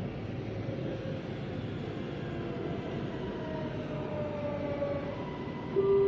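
Inside an MRT Blue Line metro train running and slowing into a station: a steady running rumble with a faint motor whine sliding down in pitch. Near the end a loud electronic chime tone starts.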